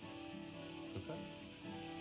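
Soft background music of sustained notes that change every half second or so, over a steady high-pitched insect chirring.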